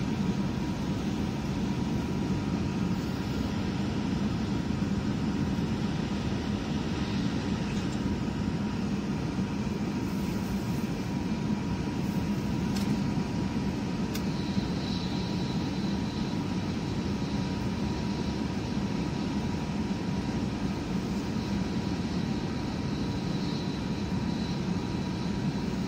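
Tohoku Shinkansen bullet train running at speed, heard inside the passenger car: a steady low rumble with a faint steady whine.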